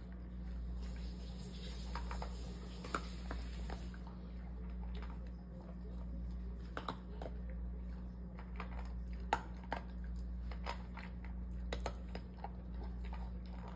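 A beagle crunching dry kibble from a stainless steel bowl: irregular crisp crunches and clicks, with a pause in the middle. A steady low hum runs underneath.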